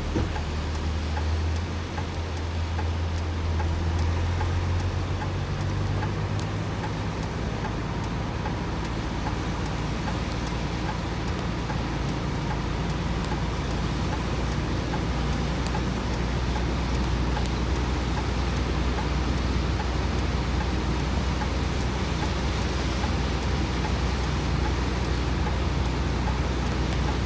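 A motor vehicle engine running steadily with a low hum that shifts in pitch during the first few seconds, over a constant wash of road or water noise.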